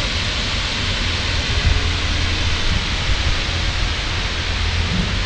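Steady loud hiss of steam blowing from a steam locomotive about to depart, over a low rumble.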